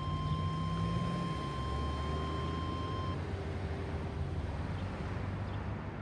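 NOAA Weather Radio's 1050 Hz alert tone, a steady high beep from the radio's speaker, which cuts off about three seconds in. Under it is the low rumble of a passing vehicle.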